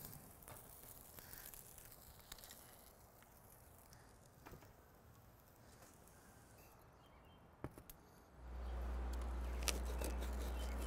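A few light clicks of metal tongs and a spatula against a stainless-steel tray, over faint outdoor quiet. About eight seconds in, a steady low hum with an even hiss comes in and holds.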